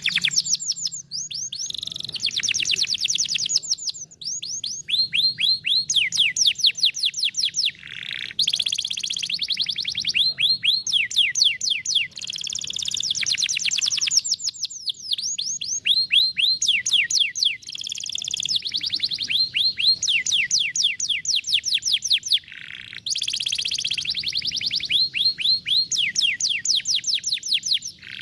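Canary singing: rapid trills of repeated notes that each sweep downward in pitch, in phrases of one to two seconds with short breaks between them.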